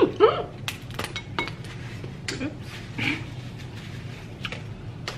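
Scattered clicks and clinks of a seafood meal at the table: utensils, dishes and snow crab shells being handled.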